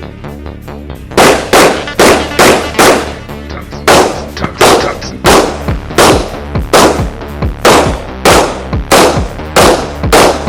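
Pistol shots in a steady string of about two a second, starting about a second in, over an electronic music track.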